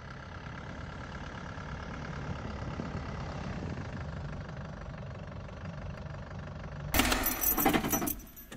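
Land Rover Defender's engine running steadily as the truck drives along a snowy track. About seven seconds in, a louder clattering and jangling, like keys, rattles inside the cab for about a second.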